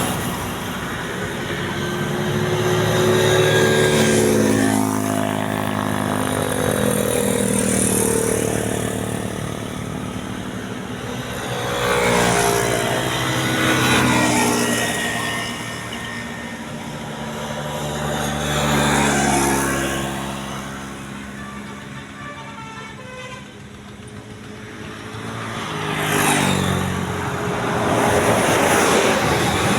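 Road traffic passing by: several vehicles go past one after another, their engine sound swelling and fading and dropping in pitch as each one passes.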